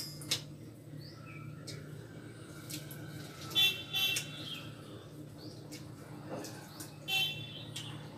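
Quiet sounds of hands mixing rice on stainless-steel plates, with a sharp clink of steelware right at the start, over a steady low hum. Two short high chirps stand out, about three and a half seconds in and again about seven seconds in.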